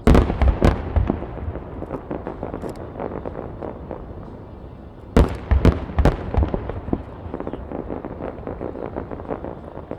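Aerial firework shells bursting in rapid volleys, with dense crackling pops between them. There is a cluster of loud booms right at the start and another about five seconds in.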